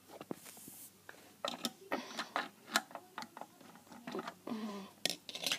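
Light, irregular clicks and taps of hands handling small plastic Lego minifigures close to the microphone, with a short vocal sound about four and a half seconds in.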